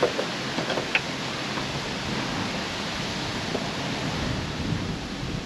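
A few small plastic clicks in the first second and one or two more later, as the retaining clip on a Tesla Model 3 frunk gas strut's upper ball joint is pried loose by hand, over a steady outdoor hiss.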